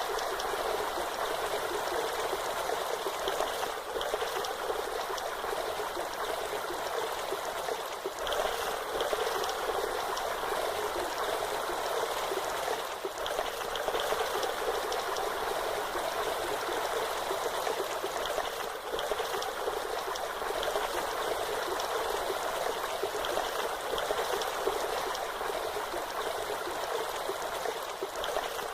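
Waterfall: a steady, even rush of falling and splashing water with no pauses or changes.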